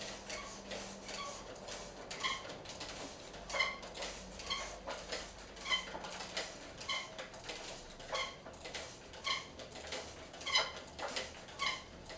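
Myon humanoid robot walking backwards, its leg motors giving a short whine with each step along with clicks and taps of its feet, about two steps a second.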